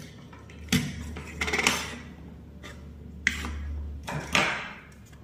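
Plastic bulb holders being set down one after another on a wooden tabletop: about four light knocks and clatters spread through a few seconds.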